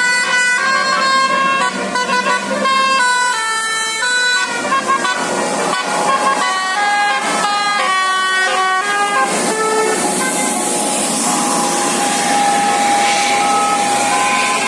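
Zafira Azzahra Holiday bus's basuri-type telolet horn playing a melody in short stepped notes, then holding one long note from about ten seconds in, with a steady rush of noise beneath it.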